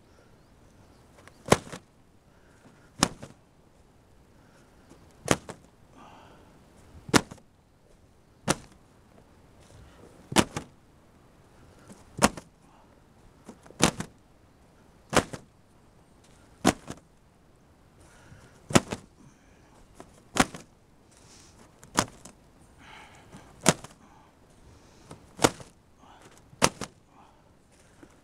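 Handheld cylindrical hole punch pushed through the taut plastic film of a row-cover tunnel, making a sharp pop with each hole, about one every one and a half to two seconds, some sixteen in a row, with faint rustling of the film between.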